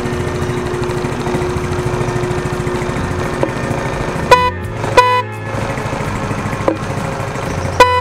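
A newly fitted MOS snail-type (keong) motorcycle horn gives two short toots about four and five seconds in, and a third just before the end. Under it the motorcycle's engine runs steadily.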